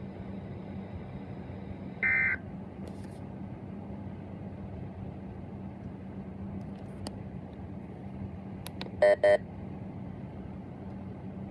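Weather radio receiver hissing with a steady low hum after the weekly test announcement. About two seconds in, a brief warbling data burst of the SAME end-of-message code, and near the end two short, loud electronic beeps.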